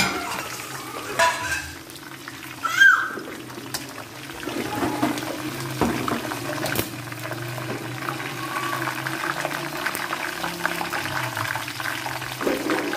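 Onions, dried red chillies, curry leaves and cumin sizzling and crackling in hot oil in an aluminium kadai: the tadka for kadhi, fried until the onions turn red. Two short louder knocks come in the first three seconds.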